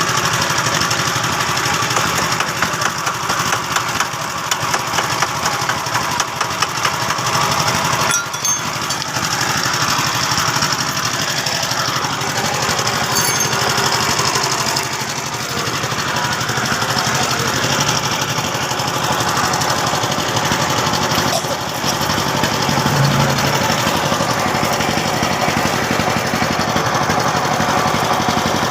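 Steady, continuous mechanical noise with a dense fine crackle, briefly dipping about eight seconds in and again about twenty-one seconds in.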